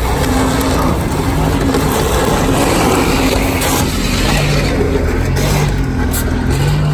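A lowered Chevrolet S-10 mini-truck's engine and exhaust running close by: a loud, steady rush of noise with a low hum underneath.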